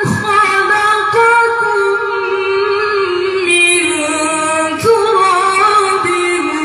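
A woman's voice reciting the Quran in melodic tajwid style, holding long ornamented notes that waver and step in pitch.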